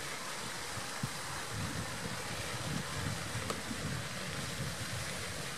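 Wind noise on the microphone: an uneven low rumble over a steady hiss.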